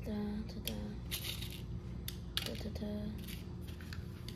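Light clicks, taps and rustles of small plastic pieces and paper being handled on a stone countertop, with a few short hummed voice sounds.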